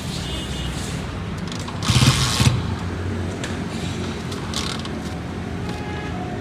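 Honda CG125's single-cylinder four-stroke engine idling steadily, with a short louder burst about two seconds in.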